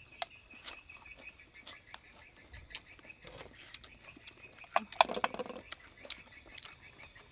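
Eating at the table: scattered clicks of chopsticks and shrimp shells, with chewing and lip smacks. A louder rustle of lettuce leaves comes about five seconds in, over a faint steady high tone in the background.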